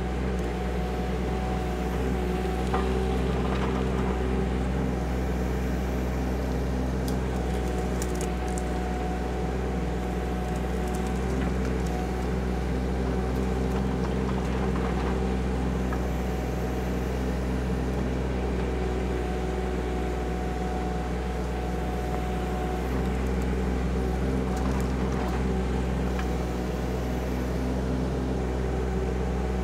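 Diesel engine of a KYMRON ZX22D mini excavator running steadily as the machine digs, with a few faint clicks about seven to eight seconds in.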